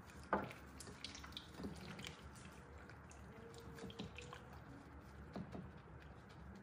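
Gloved hands mixing raw chicken pieces in marinade in a glass bowl: faint, irregular wet squelches and clicks, the sharpest just after the start.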